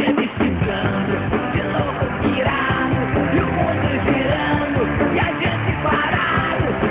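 Rock song with a male singing voice and band backing.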